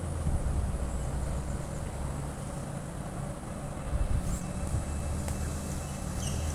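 Low, steady rumble of a Boeing 737 MAX 8's CFM LEAP-1B jet engines passing overhead.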